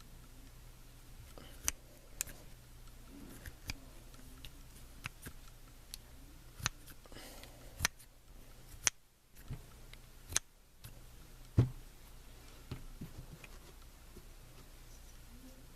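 Irregular light clicks and knocks of steel revolver parts being handled on a bench, about a dozen, with the loudest knock about three-quarters of the way through.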